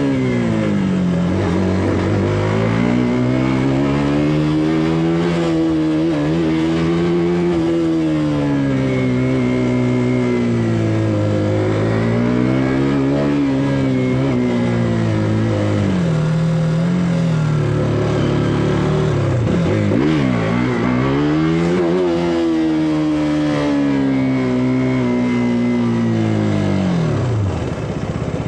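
KTM RC 200's single-cylinder engine through its stock exhaust, ridden hard: the engine note climbs and drops in pitch again and again as it revs up and comes off the throttle, falling to a low note near the end.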